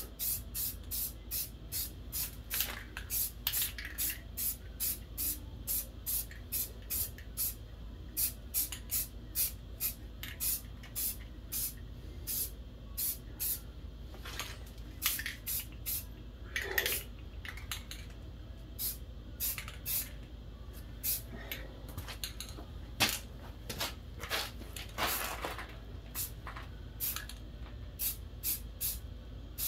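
Aerosol can of Rust-Oleum satin black spray paint sprayed in many short hissing puffs, about two or three a second, with a few brief pauses.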